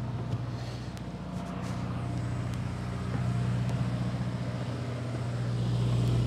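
Catamaran's motor running steadily under way, a low even hum, getting slightly louder about halfway through.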